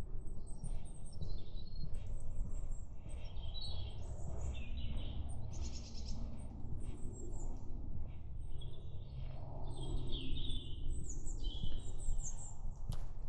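Several small woodland songbirds calling and singing, with many short, high, thin calls and trills overlapping, over a steady low rumble.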